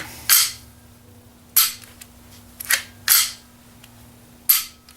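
Ruger 10/22 rifle action being cycled by hand in a function check: about five sharp metallic clacks of the bolt and its parts snapping home, a second or so apart.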